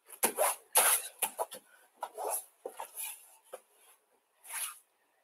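A run of short, irregular scuffs and rustles, about seven in five seconds, from a judoka hopping on one leg in an uchi-mata entry with a throwing dummy on tatami mats.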